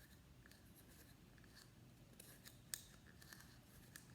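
Faint clicks and light rustling of a small plastic K-cup being handled as yarn is threaded through the hole in its bottom, with one sharper click near the end.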